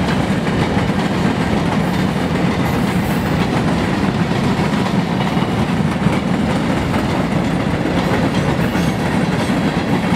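Empty ore cars of a freight train rolling past, their steel wheels running on the rails with a steady, loud noise.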